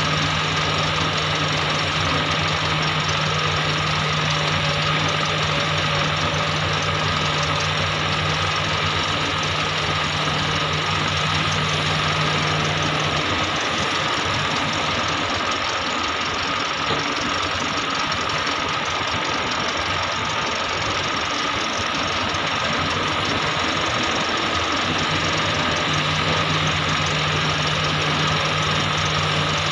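Diesel engine of an XCMG XE370CA crawler excavator running steadily as the machine digs ore and swings loads into a dump truck. A low steady hum under it drops away about halfway through and comes back near the end.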